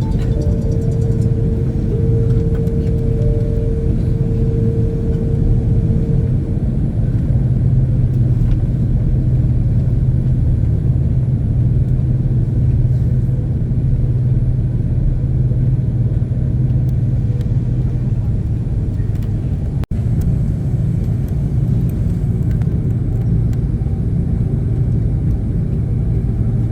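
Steady low rumble of an Airbus A330's engines heard inside the passenger cabin while the aircraft is on the ground. A steady hum is also heard for the first few seconds and then fades out. The sound drops out very briefly about twenty seconds in.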